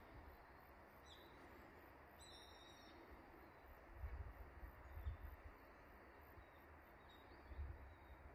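Near silence with faint bird calls: a short call about a second in, a brief call of a few stacked notes about two seconds in, and another faint short call near the end, over a few soft low rumbles.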